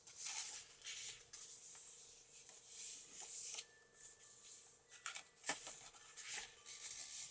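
Paper rustling and swishing as the pages of a handmade paper journal are turned and handled, with a sharp tap about five and a half seconds in.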